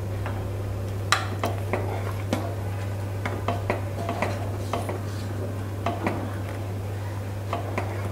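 A spoon stirring thick milk-and-grated-carrot kheer in a stainless steel pot, scraping and knocking against the pot's sides and bottom in irregular clinks. A steady low hum runs underneath.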